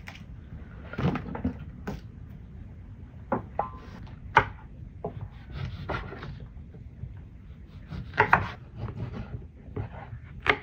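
Kitchen knife cutting green chili peppers on a wooden cutting board: scattered, irregular knocks of the blade against the board.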